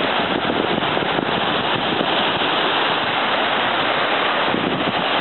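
Surf breaking and washing up the beach: a loud, steady rushing noise.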